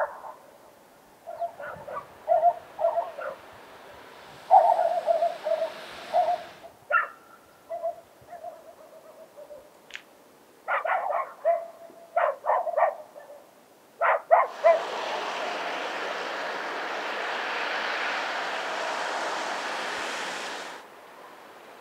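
A dog barking and yelping in short, repeated calls. About fifteen seconds in, a steady rushing noise comes in for some six seconds and then stops abruptly.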